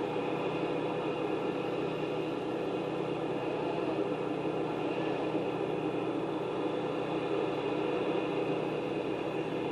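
A steady mechanical drone, an engine or machine running at an even pace, with a faint steady hum under the noise and no change in pitch.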